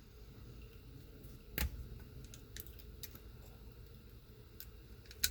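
Small clicks and taps from handling a small wire connector and fine dash cam wire while pushing the wire into the connector, with a sharper knock about a second and a half in and another near the end.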